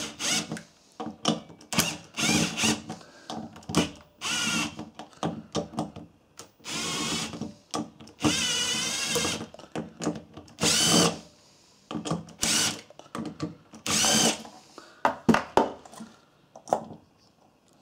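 Power drill-driver undoing the clutch pressure-plate spring bolts in a series of short bursts of wavering motor whine, most under a second long. Short clicks and knocks of tool and metal parts come between the bursts.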